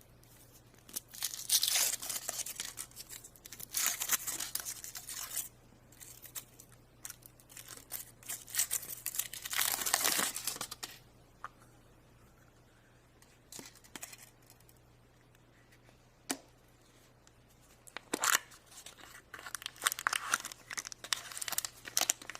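Wrapper of a chocolate surprise egg being torn and crinkled open by hand, in three bursts of rustling with quiet pauses between, and a single click in the middle pause.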